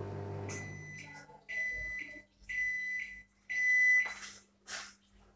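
Enviro microwave oven finishing its cooking cycle: its running hum dies away in the first second, then it gives four high end-of-cycle beeps about a second apart.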